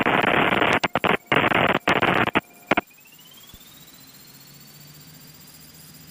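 Loud static hiss over the aircraft radio, coming in chopped, breaking bursts and cutting off about three seconds in, leaving only a faint steady background.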